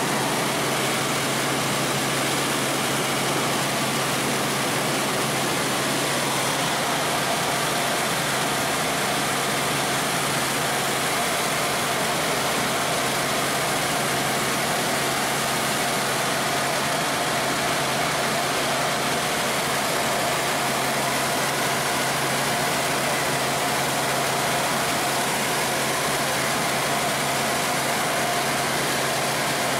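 Helicopter engine and rotor noise heard inside the cabin in flight: a steady, even drone that does not change.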